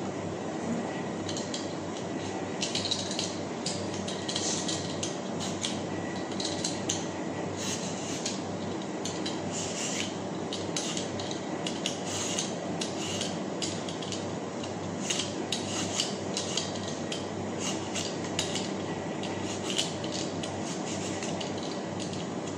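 Knife cutting through a ripe mango: many short scraping and tapping strokes in irregular runs as the blade slices the flesh off, over a steady background hum.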